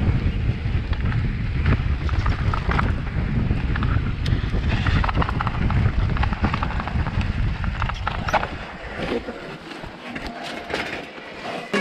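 Electric mountain bike riding down a dirt and rocky trail: tyres rolling over the ground, chain and frame rattling with sharp clicks over stones, and wind rumbling on the microphone. About nine seconds in the wind rumble drops away as the bike slows, leaving a few clicks and rattles.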